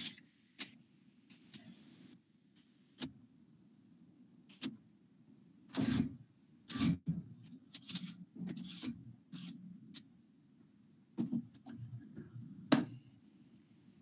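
Whiteboard eraser rubbing across a whiteboard in short, uneven strokes, with scattered sharp knocks and taps against the board. The sound comes through a video-call microphone.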